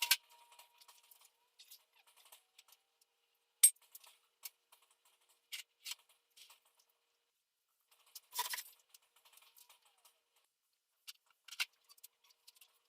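Small hard parts being handled: scattered light clicks and taps, with one sharp click about three and a half seconds in and a short clatter about eight seconds in.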